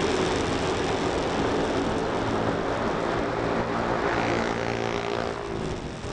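Motorcycle engine running steadily at riding speed, heard from on the bike, with a broad rushing noise of wind and road over it.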